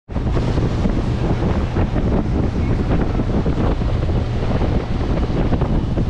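Loud, steady wind buffeting the microphone on a 2022 Bennington pontoon boat under way, with the rush of its motion through the water beneath.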